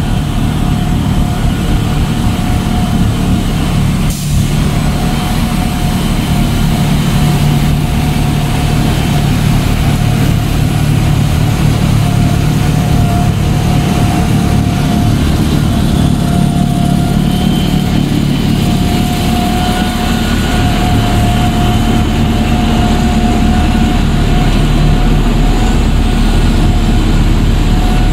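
Snow blower on a John Deere wheel loader running steadily while blowing snow into a dump trailer: a deep, loud engine drone with a steady whine on top. There is a single short knock about four seconds in.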